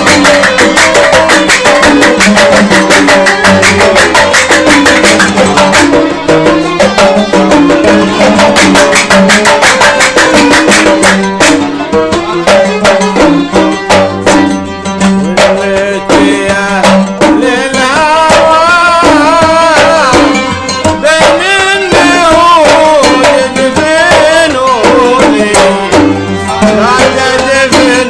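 Kuwaiti sawt folk ensemble playing an instrumental passage: violins and qanun carry the melody over fast, steady mirwas hand-drum beats. About halfway through, the violin melody comes forward with a wavering, ornamented line.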